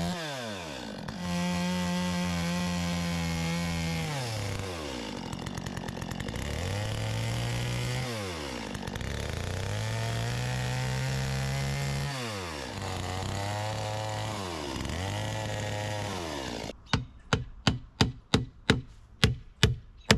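Stihl chainsaw revving and cutting into a wooden log post, its engine pitch rising and sagging several times as the chain bites and is eased off. About 17 seconds in the saw stops and a hammer strikes a dozen quick blows, driving roofing nails through sheet-metal flashing into the post.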